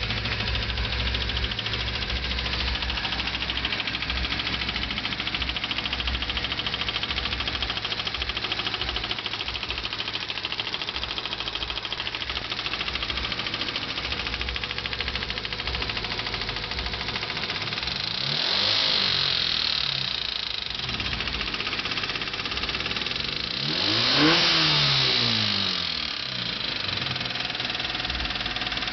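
Honda Civic D15B7 four-cylinder engine idling with a clicking sound. It is revved briefly twice, about 18 and 24 seconds in, rising and falling back to idle each time; the second rev is the louder.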